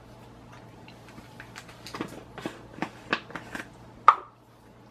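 Light clicks and taps of plastic measuring spoons and a spice container being handled, with one sharper click a second before the end.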